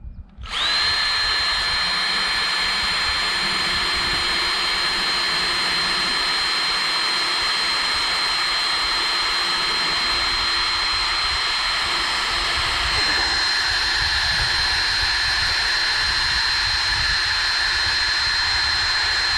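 Power drill spinning up and then running steadily at full speed with a high whine for a long stretch before stopping, its bit failing to cut.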